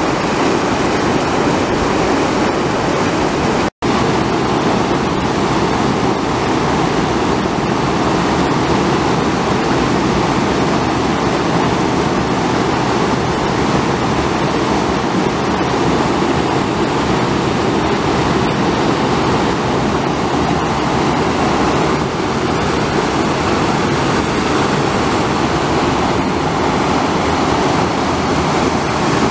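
Loud, steady rush of a muddy flash-flood torrent churning down a dry-wash arroyo channel. The sound cuts out for an instant about four seconds in.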